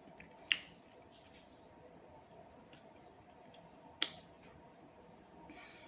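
Quiet room with two short, sharp clicks, one about half a second in and one about four seconds in, and a soft brief rustle near the end.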